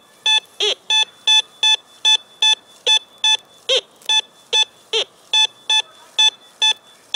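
Teknetics Ameritek Minuteman metal detector giving short, identical high beeps, about two and a half a second, as its coil is swept back and forth over a buried target. The high tone marks a high-conductivity target reading around 80, a copper penny.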